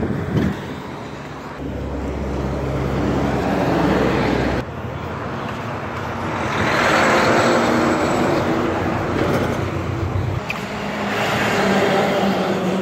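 Street traffic: vehicles driving past, their engine and tyre noise swelling and fading twice. A box truck's engine passes near the end.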